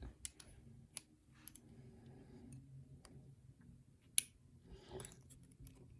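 Faint, scattered small metal clicks and taps of lock pins and a tool being handled while a pin tumbler lock is taken apart, with one sharper click about four seconds in.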